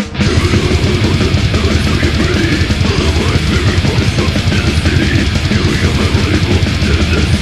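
Death metal song playing: heavily distorted guitars, bass and drums in a dense, constant wall of sound. The full band comes in just after a few drum hits at the start.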